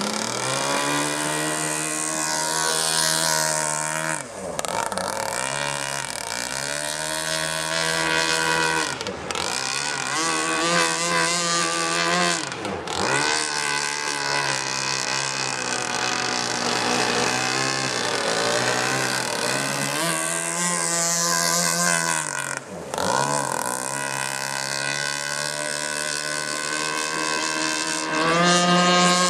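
Modded 42cc two-stroke chainsaw engine in an RC gas hydroplane, running at high revs as the boat speeds across the water. Its pitch drops sharply and climbs back about four times as the throttle is eased off and opened again.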